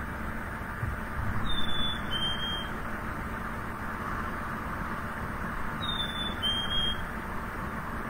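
Black-capped chickadee singing its two-note "fee-bee" song twice, each time a clear whistle followed by a slightly lower one, over a steady background hiss.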